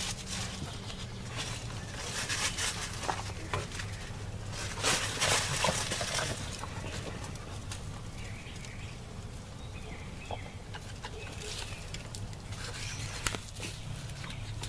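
Silver Spangled German Spitzhauben chickens moving about in a coop. Their feet rustle and scratch in the wood-shavings litter, loudest about five seconds in, with scattered soft clucks, over a steady low hum.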